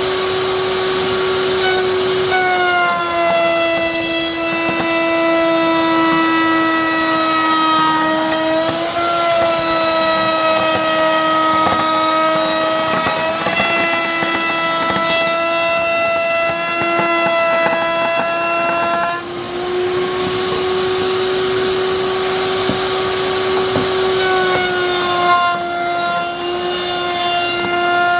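A high-speed woodworking power tool whines steadily as it cuts wood. Its pitch sags a little under load about two seconds in, recovers around nineteen seconds, then sags again near the end.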